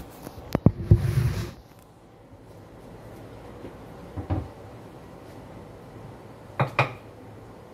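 Close clicks and a rubbing clatter as the recording phone is handled and propped on a kitchen counter, followed by two light knocks of kitchen things set down, the second a little before the end.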